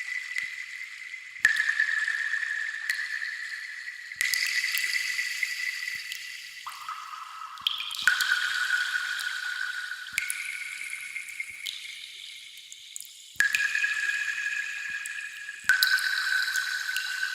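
Water-drop sound effect: a slow series of pitched, ringing plinks, about ten in all, each starting sharply and ringing on for a second or two at a different pitch before the next.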